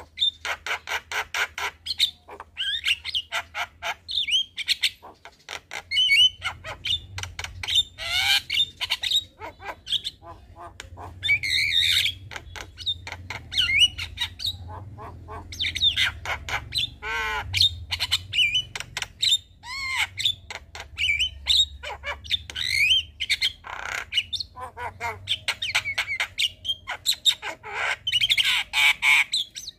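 Javan myna singing in a continuous stream of harsh squawks, rapid clicking notes and short whistled glides.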